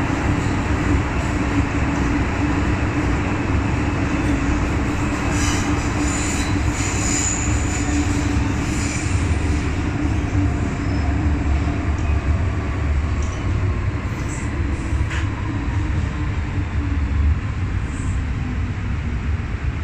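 MTR M-Train electric multiple unit running on the Tsuen Wan line: continuous rumble of wheels on rail with a low hum that fades over the first half, and brief high-pitched wheel squeal a few seconds in.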